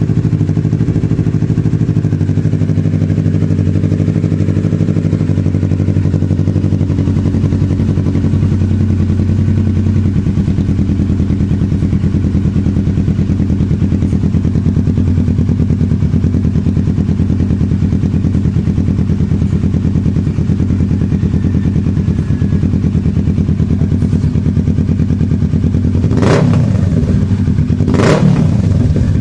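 Kawasaki Ninja 650 parallel-twin idling steadily through a Yoshimura Alpha exhaust, then revved in two quick throttle blips near the end.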